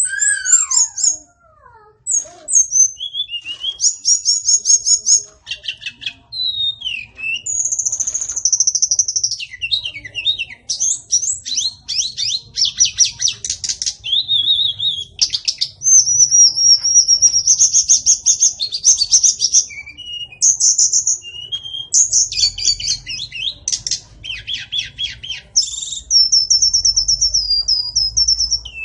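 White-rumped shama singing a long, varied song: clear gliding whistles, fast trills of evenly repeated notes and chattering phrases, one after another with only short pauses.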